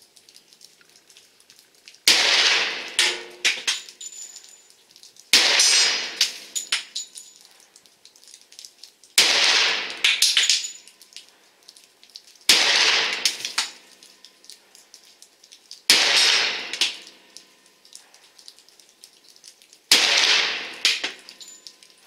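Springfield XDM10 pistol firing 10mm Auto rounds: six single shots spaced about three to four seconds apart, each a sharp crack with an echoing tail followed by a few light ticks.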